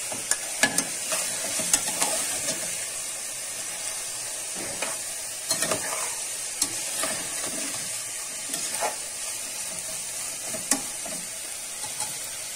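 Diced smoked calabresa sausage frying in a saucepan with softened onion, a steady sizzle, while a metal spoon stirs it and clicks and scrapes against the pan.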